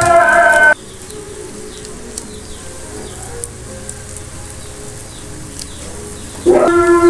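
Background music with singing cuts off just under a second in and comes back near the end. In between is a quiet stretch with faint chirps and a few soft clicks as scissors snip open a seasoning sachet over the pan.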